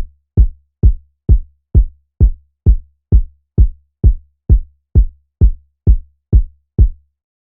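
Electronic kick drum sample played on its own in a steady pattern: sixteen identical hits, about two a second, each with a sharp attack and a short deep tail. It stops shortly before the end.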